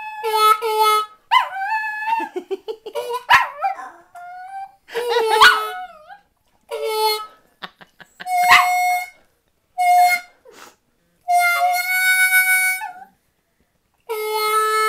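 Blues harmonica playing short phrases with pauses, and a Chinese Crested dog howling and yipping along in bending, gliding pitches, mostly in the first half. Steadier held harmonica notes follow, and a long held chord comes in near the end.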